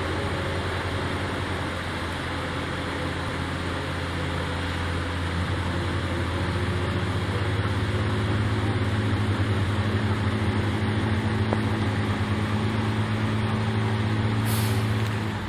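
Logging truck's diesel engine running steadily, growing a little louder about six seconds in, with a brief hiss near the end.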